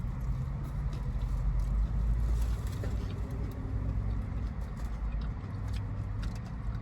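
Car engine idling with a steady low hum, heard from inside the parked car's cabin, with a few light clicks over it.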